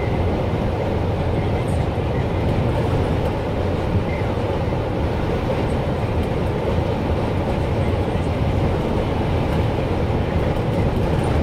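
Steady road and engine noise inside a vehicle cruising at motorway speed: a constant low rumble of tyres on asphalt.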